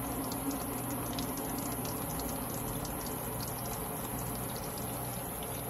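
Water pouring from a plastic watering can through an orchid pot of bark and sphagnum moss and draining out the bottom into a plastic bucket: a steady trickle with many small splashes.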